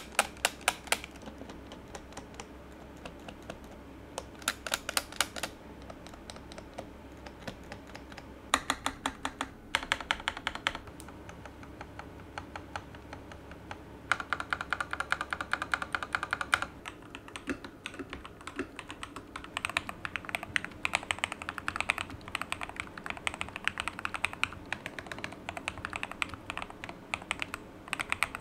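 Typing sound test on a modded MMD87 mechanical keyboard with heavily lubed Akko Rose Red linear switches, foam-dampened case and PBT keycaps. Short runs of rapid keystrokes separated by pauses give way to steady, continuous typing about seventeen seconds in.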